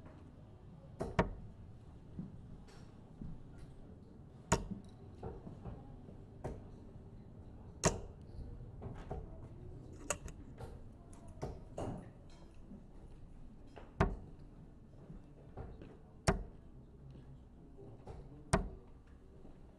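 Steel-tip darts striking a Winmau Blade 6 bristle dartboard: sharp single thuds a few seconds apart, the last three about two seconds apart as one player throws his set, with fainter knocks in between.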